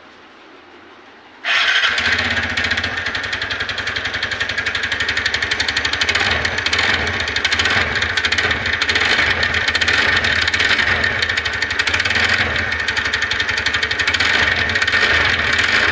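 TVS Ntorq 125 scooter's single-cylinder engine starting about a second and a half in, then running steadily with a rapid ticking rattle. The mechanic puts the noise down to a worn starter bearing inside the magneto, or possibly a loose magneto nut.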